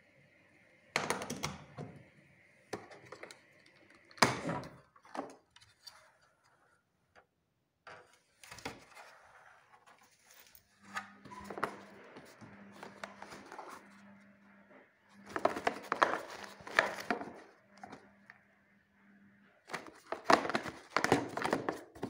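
Plastic clicks, knocks and rattles as the hinged dust-compartment lid and housing of an Electrolux PowerForce canister vacuum cleaner are opened and handled. There is a louder knock about four seconds in and clusters of rattling in the second half and near the end.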